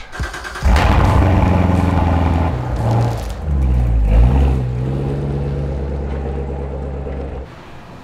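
A Chevrolet Corvette C7's V8 engine starting with a loud flare, then settling to a steady idle with a dip and rise in pitch along the way. The sound cuts off near the end.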